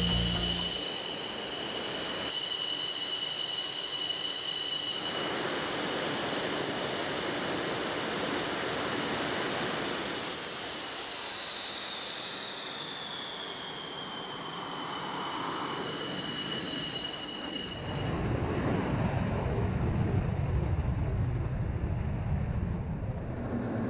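MiG-29's twin turbofan engines running on the ground: a steady jet whine with several high pitched tones, one of which slides down in pitch about ten seconds in. About 18 seconds in the whine gives way to a deeper, rougher rumble.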